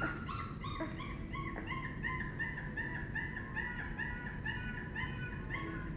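A dog howling in a run of short, high repeated notes, about three a second.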